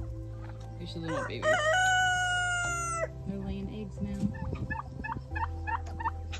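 A rooster crowing once, one long call that rises and then holds before cutting off sharply. A run of six short chirps follows near the end, over low steady background music.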